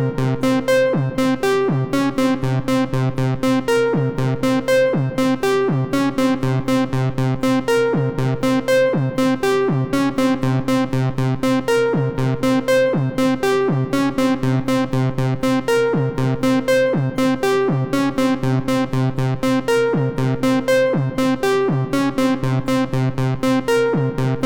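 Looping "suspicious" background music: a synthesized keyboard or electric-piano figure plays short, evenly spaced notes over a sustained low tone, repeating the same phrase throughout.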